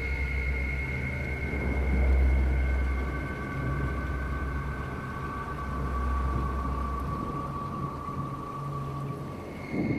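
Suspense drone from a horror film soundtrack: a low rumble that swells and fades, with a few high, steady tones held over it. The lower of those tones steps down in pitch about three seconds in.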